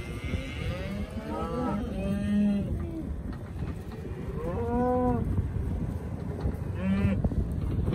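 Black beef cattle in a corral mooing: three or four calls a few seconds apart, the last one short, over a steady low background noise.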